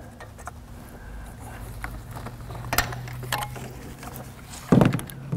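Scattered light clicks and taps of a hand and tool working the wiring at a car's rear oxygen sensor in the engine bay, with a sharper click about three seconds in and a louder short noise near the end.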